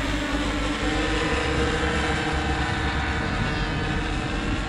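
The four OS 25 two-stroke glow engines of a radio-controlled B-17 scale model running together in flight, a steady multi-engine buzz of propellers.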